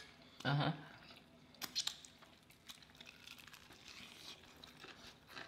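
Faint crunching and chewing as a person bites into and eats a crispy fried chicken drumstick, with a few sharper crackles of the breading near two seconds in.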